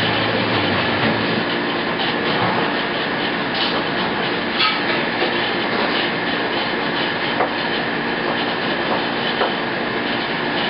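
Steady mechanical background noise, a dense even rush with faint steady hums, broken by a few light knocks.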